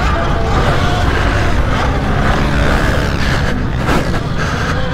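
Pit bike engines running, a steady loud motor-vehicle sound with a dense low rumble.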